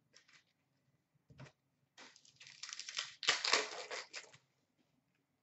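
Foil wrapper of a hockey card pack being torn open and crinkled: a dense crackling rustle lasting about two seconds, coming after a single light click.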